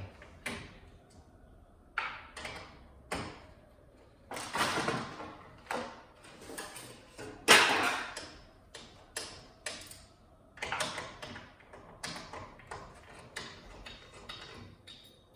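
Irregular clicks, knocks and short scrapes of metal parts and hand tools being handled while a flat-screen TV is taken apart, with one louder knock about halfway through.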